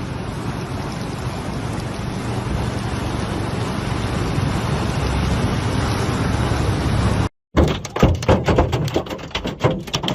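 Steady rush of fast-flowing floodwater, growing slightly louder, then cut off abruptly. After the cut comes a run of irregular knocks and thuds.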